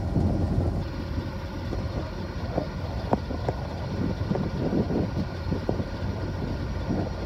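Diesel locomotive engine running steadily with a low hum, with wind buffeting the microphone.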